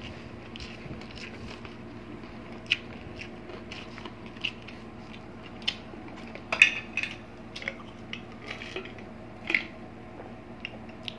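Close-miked mukbang eating sounds: wet chewing and short lip smacks and clicks of mouths working on braised pork hock, scattered through. From about six seconds in the smacks come a little louder and closer together as drinks are swallowed from glasses.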